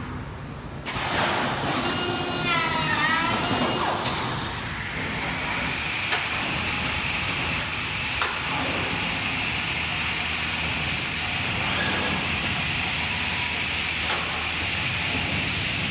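URBAN AKS 6110 welding and SV 530 corner-cleaning line for window frames running. A brief wavering squeal comes a few seconds in, then a steady high machine whine sets in, with a few sharp clicks.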